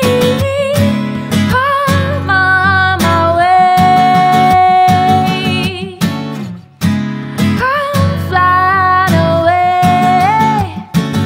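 Live acoustic song: a female vocalist sings long, sustained notes over a strummed acoustic guitar. One long held note in the middle of the stretch and another near the end, while the guitar keeps an even strumming rhythm.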